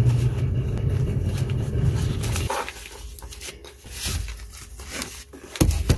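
A steady low hum for the first two and a half seconds, then the rustle and scrape of a nylon drawstring pouch as a handheld oscilloscope is pushed into it, a tight fit, with a brief louder rustle near the end.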